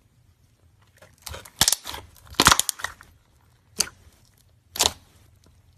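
Slime being squeezed and poked, giving sharp pops and crackles: a burst of several between one and three seconds in, then two single pops about a second apart.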